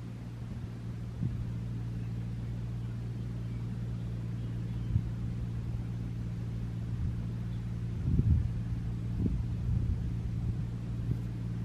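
A steady low mechanical hum, like an engine or motor running at a constant speed, with a few brief low bumps, the strongest about eight seconds in.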